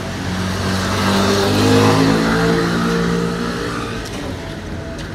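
A motor vehicle passing on the street and accelerating, its engine note rising in pitch. It is loudest about two seconds in and fades away by about four seconds.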